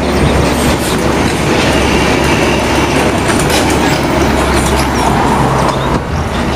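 Heavy trucks driving past close by on a road, a Hino box truck among them: a loud, steady engine rumble with road noise and rattling.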